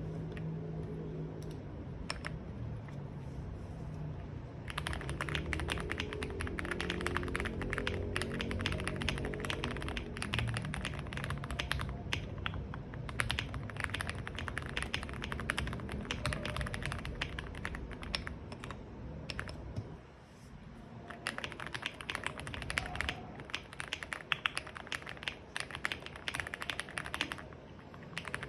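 Typing on an RKM75 mechanical keyboard with Gateron Milky Yellow Pro linear switches and Akko SAL keycaps: a fast, continuous stream of key clacks that starts about five seconds in, stops briefly about two-thirds of the way through, then picks up again.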